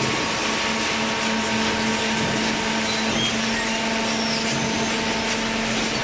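Automatic waste-paper baler running: a steady electric motor and hydraulic pump hum under an even mechanical rushing noise.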